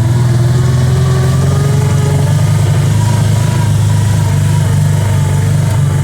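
Kawasaki Teryx 800 side-by-side's V-twin engine running steadily on a trail, an even low drone with little change in pitch.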